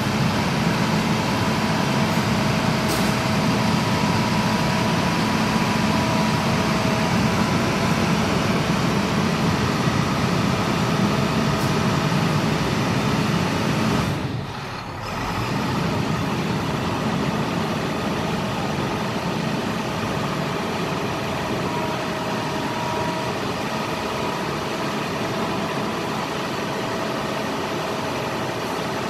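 International DT466 7.6-litre inline-six turbo diesel idling steadily in a bucket truck, with a brief dip in level about halfway through.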